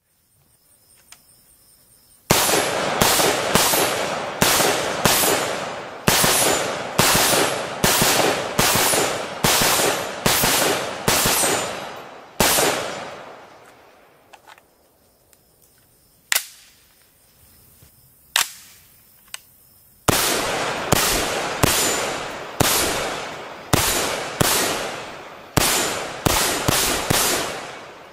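Bushmaster ACR semi-automatic rifle, firing .223 rounds, shot in quick semi-auto strings at about one to two shots a second, each report trailing off in echo. About fifteen shots come first, then a pause around the middle with a couple of single sharp reports. A second string of about a dozen shots follows.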